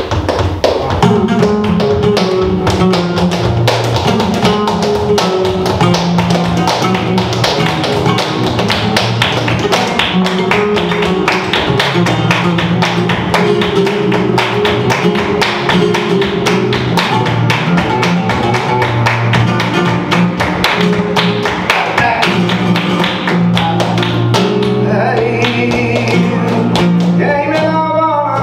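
Flamenco guitar played with steady rhythmic palmas, hand clapping that keeps the beat. A singing voice comes in near the end.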